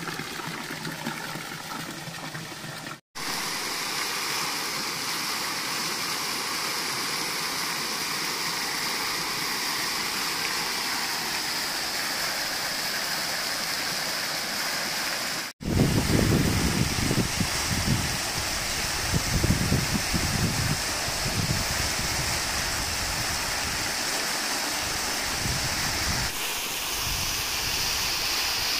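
Park fountains splashing steadily: water pouring from a wall spout into a stone basin, then jets and a stepped cascade falling into pools. The sound drops out briefly twice, and from about halfway in, low gusts of wind buffet the microphone over the water.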